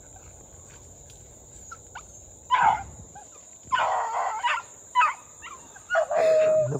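Beagles baying in the distance while running a rabbit: about four bursts of hound voice, the last a long drawn-out bawl. A steady high insect buzz sits underneath.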